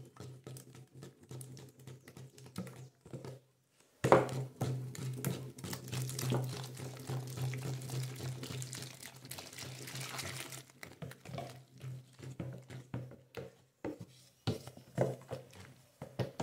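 Hot water poured from a plastic measuring cup into a plastic bucket of caustic-soda paste for homemade detergent, a steady splashing pour starting suddenly about four seconds in and stopping about ten seconds in. Before and after it, a wooden spoon scrapes and knocks around the bucket as the soda is stirred to dissolve.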